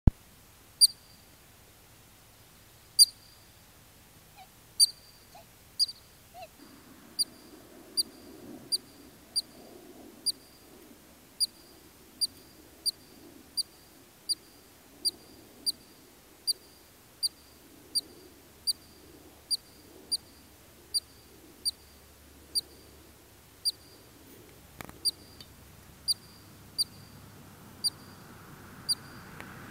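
Columbian ground squirrel giving a long series of short, high, sharp chirps. They come irregularly at first, then settle to a steady one and a half or so a second: the species' repeated alarm call.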